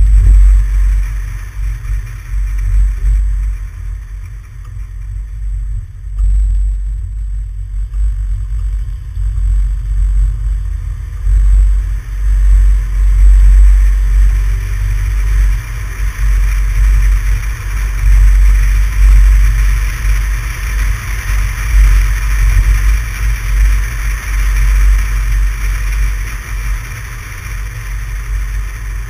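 Wind and road noise from a moving vehicle, picked up by a camera mounted on the outside of the car: a heavy, uneven low rumble that surges and dips, over a steady hiss.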